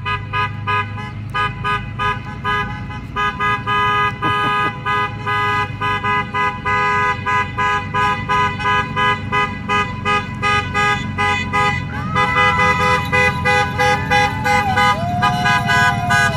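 Vehicle horns honking over and over at about two honks a second, several horns of different pitch at once, over the low rumble of an approaching school bus's engine that grows toward the end.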